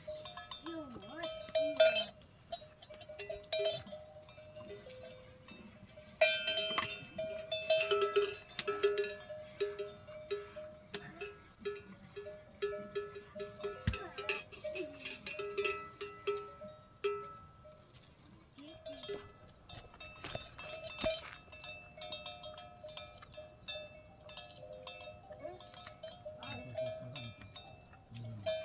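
Livestock bells clanking and ringing irregularly, with many sharp metallic clicks.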